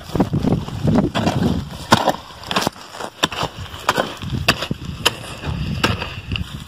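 A mattock striking and scraping hard clay soil while digging a planting hole: irregular chopping hits, about one or two a second, with dirt shifting between them.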